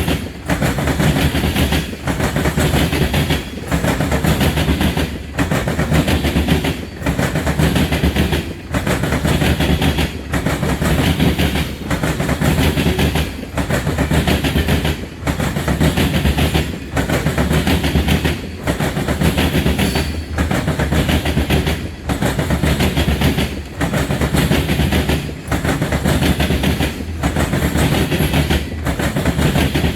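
Freight train rolling past at speed: loud, steady wheel-on-rail noise with a clickety-clack, dipping briefly at even spacing a little under every two seconds as the cars go by.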